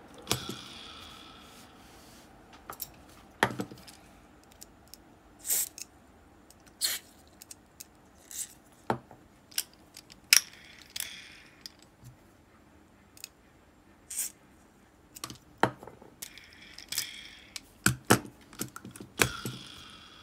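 Metal parts of an Abu Garcia Ambassadeur 5500C baitcasting reel clicking and tapping as the reel is handled and taken apart on a wooden table: scattered sharp clicks, a few of them followed by a short metallic ring.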